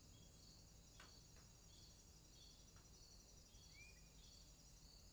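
Faint outdoor bush ambience: a steady high insect trill with repeated short chirps and a brief bird call near the end. A few faint clicks are heard about a second in and again near three seconds.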